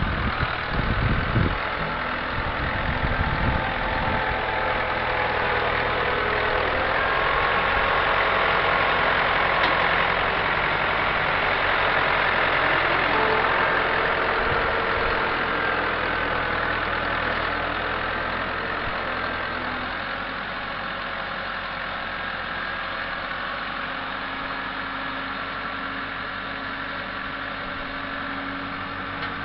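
International Harvester 584 tractor's diesel engine running under load as the front loader pushes compost up into a pile, working back and forth. The engine is louder through the first half and eases to a lower, steadier run after about twenty seconds, with wind buffeting the microphone at the start.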